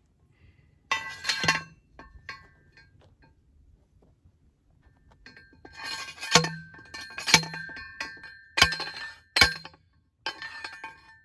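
A yellow manual, non-spring-loaded T-post driver is banging down on a steel T-post. A short metal clatter comes about a second in, then about five sharp ringing clanks roughly a second apart as the post is driven into the ground.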